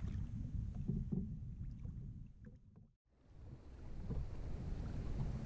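A kayak moving on a lake: a low wind rumble on the microphone with a few faint knocks and water sounds from the hull and gear. The sound fades out briefly about halfway through and comes back.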